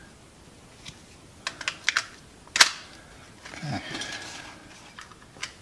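Small plastic clicks and taps of batteries being fitted into a toy radio-controlled car's battery compartment, with one sharper snap about two and a half seconds in, then a brief rustle of handling.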